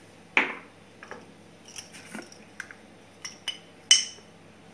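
Kitchen containers handled on a hard countertop. A sharp knock with a short ring comes about half a second in, as a glass pepper shaker is set down. Light clicks follow, then one ringing metallic clink near the end.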